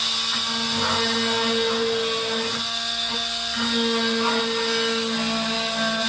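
Corded handheld power cutting tool running at a steady high whine as it cuts into the rusted wall of a bus. Its note changes briefly about three seconds in, then settles again.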